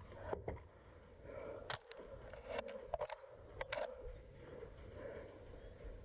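Several short, sharp clicks and knocks at irregular intervals, about six in all, over a faint low rumble.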